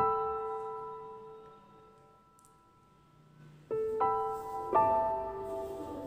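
Soft background piano music: a chord struck at the start and left to ring out and fade, then three more notes struck in quick succession near the end.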